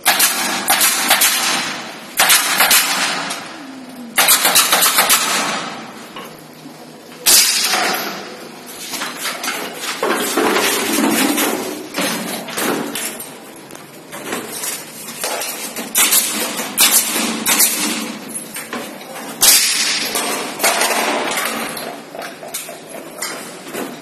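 Tool work on plastic ceiling panels: a series of loud, abrupt bursts of noise, each dying away over a second or so, coming every two to three seconds, with smaller knocks in between.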